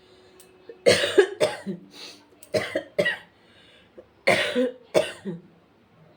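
A woman coughing in three short fits of two or three coughs each.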